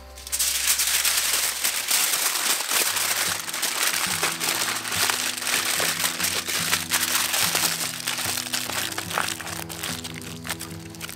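Aluminium foil crinkling and crackling as it is folded and scrunched tightly by hand into a parcel. It is loudest in the first few seconds and eases off toward the end.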